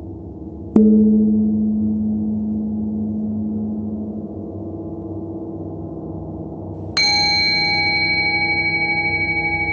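Two gong strikes in an ambient soundtrack. A low one about a second in rings and slowly fades, then a higher, brighter one near the end rings on with a slight pulsing beat.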